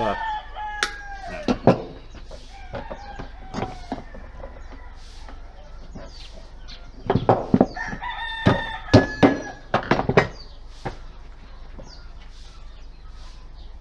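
Chickens clucking and a rooster crowing, in short spells, busiest about seven to ten seconds in.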